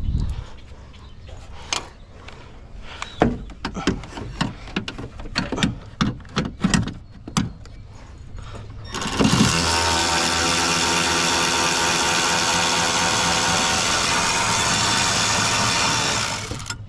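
Scattered clicks and knocks of hand work on plastic clips and wiring. About nine seconds in, a loud, steady motor starts running at a constant pitch and stops just before the end.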